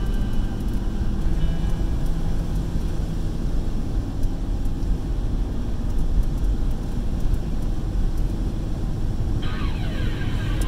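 Car driving through floodwater, heard from inside the cabin: a steady low rumble of the engine and tyres pushing through the water.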